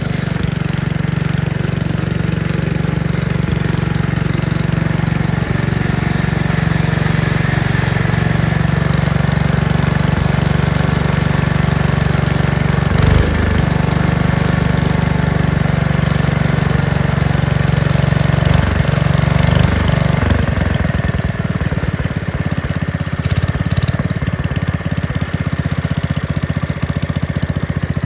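Gravely two-wheel tractor engine running steadily with a snowblower attachment. There is a brief knock about 13 seconds in. From about 20 seconds in, the engine note drops and turns choppier.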